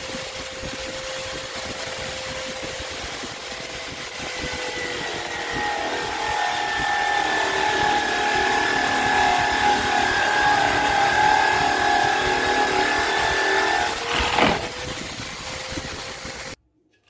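Electric hand drill mounted in a makeshift bench drill stand, running steadily with a 3/4-inch spade bit boring an angled hole into a pine board. The sound gets louder about four seconds in as the bit cuts into the wood. There is a brief sharp knock near the end before the sound cuts off suddenly.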